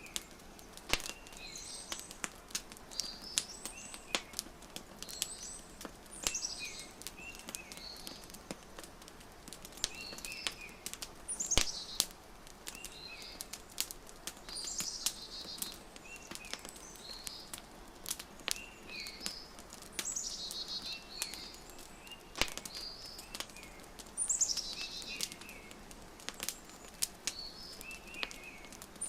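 Wood fire crackling with scattered sharp pops, while small birds chirp short repeated phrases every second or two.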